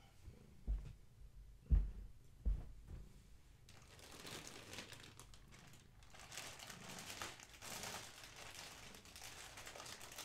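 Three dull thumps in the first few seconds, then a plastic bag crinkling steadily as it is handled, from about four seconds in.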